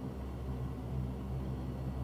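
Lockheed C-130H Hercules' four Allison T56 turboprop engines and propellers running, heard inside the cockpit as a steady low drone.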